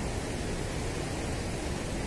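Water rushing steadily through the open sluice gates of a river weir.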